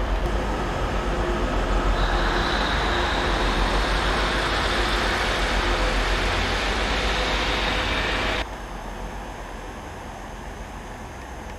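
Class 37 diesel locomotive's English Electric V12 engine running steadily, with a thin high steady whistle over it from about two seconds in. After about eight seconds the louder sound cuts off abruptly, leaving a quieter steady engine sound.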